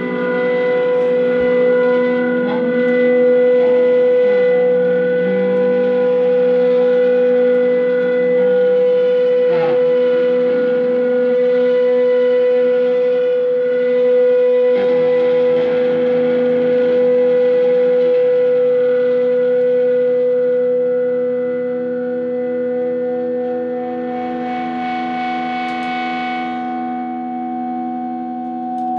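Guitar improvisation built on a drone: several long held tones layered together, one note held steady for most of the time, with a few notes struck over it. Near the end a brighter shimmer of quickly played strings comes in.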